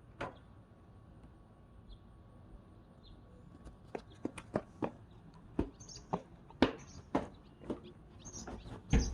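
Small birds chirping in short, sharp calls from their nest, faint and sparse at first and coming more often in the second half.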